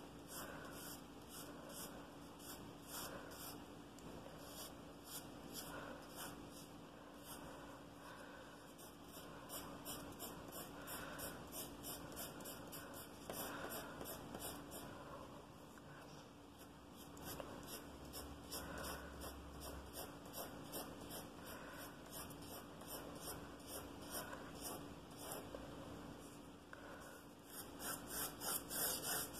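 Pencil scratching on paper in short repeated strokes, about two or three a second, as shading lines are hatched across a drawing. The strokes get louder and quicker near the end.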